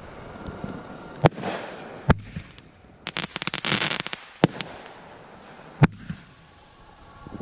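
Fireworks going off: single sharp bangs a second or so apart, with a dense run of rapid crackling pops lasting about a second, about three seconds in.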